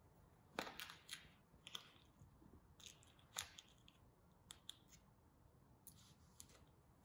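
Faint handling noise as a small plastic IMU motion sensor is fitted onto the waistband of cycling shorts: a scatter of light clicks and crackles with fabric rustle, busiest in the first few seconds.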